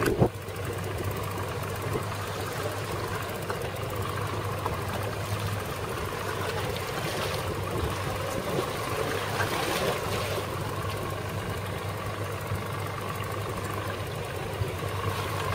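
Evinrude 225 outboard motor idling steadily, a constant low hum with a fainter higher drone over a haze of wind and water noise.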